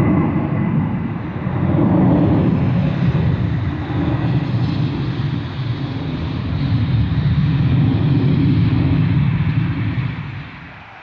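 Jet airliner passing overhead: a deep engine rumble that swells and eases, with a thin high whine that fades out within about four seconds. The noise drops away sharply near the end.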